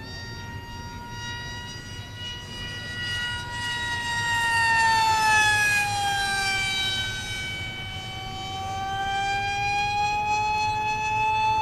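Electric RC jet's brushless in-runner motor and small pusher propeller whining at full speed in flight. The pitch falls as the plane passes, loudest about five seconds in, then climbs slowly again as it swings back toward the field.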